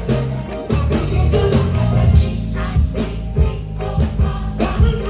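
Upbeat gospel music played loud, with a heavy bass line, a steady beat and singing.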